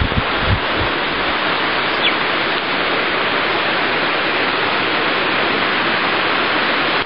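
Steady rushing noise of a waterfall. Wind thumps on the microphone in the first second, and a brief high chirp about two seconds in.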